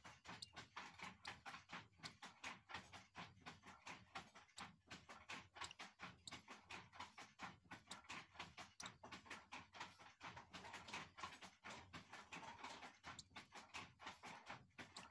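Faint, quick clicking, about three a second, from a downy hawk chick pecking at and tearing a piece of raw meat.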